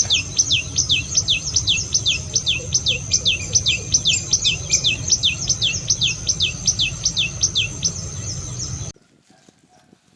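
Common tailorbird singing: a fast, even run of sharp notes, each sweeping down in pitch, about three or four a second, over a steady high whine. The song stops shortly before the sound cuts off abruptly near the end.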